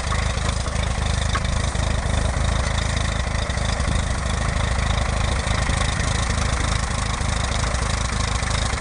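Farm tractor engine running steadily at a low, even speed, a constant low throb with a rough mechanical rattle over it.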